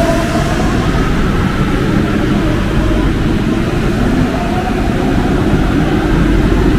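Alstom MP-05 rubber-tyred metro train running, a steady loud rumble with an electric motor whine that rises in pitch.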